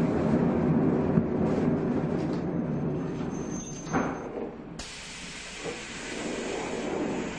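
Shin-Keisei car 252, a nose-suspended-motor (tsurikake) electric train, running along the track: its dense rumbling running noise dies away over the first few seconds. A knock comes about four seconds in, and then a steady hiss begins suddenly.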